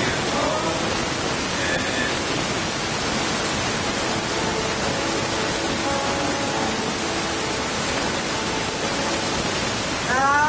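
Live band music almost buried under a steady, loud hiss of noise from a faulty recording; faint held notes show through, and a voice comes in near the end.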